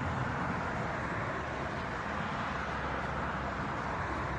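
Steady hum of road traffic, an even rushing noise with no breaks.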